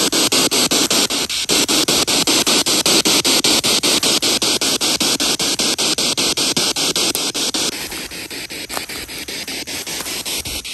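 Spirit box radio sweep played through a small handheld speaker: loud static hiss chopped rapidly several times a second as it scans channels. It gets quieter and duller about eight seconds in.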